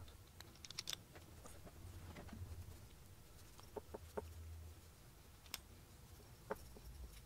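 Near silence with a faint low hum and a few scattered faint clicks: small metal pneumatic-cylinder parts and a pick tool being handled during seal removal.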